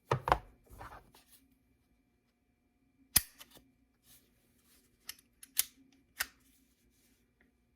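Sharp clicks and clacks from a Glock 17 Gen 5 paintball pistol being handled, its slide worked and trigger dry-fired. A handling rattle early on, one loud click about three seconds in, then a cluster of clicks between five and six and a half seconds.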